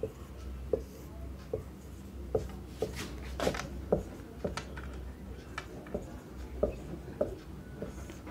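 Marker pen writing on a whiteboard: a run of short, irregular strokes and taps as words are written out by hand.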